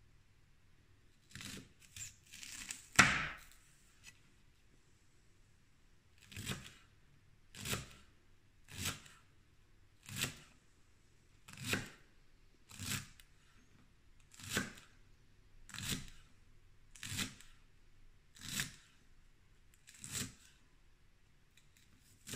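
Chef's knife slicing green onion on a cutting board. A few quick cuts come first, ending in one sharp knock of the blade on the board about three seconds in. Then come about eleven slow, evenly spaced crunching cuts, roughly one a second.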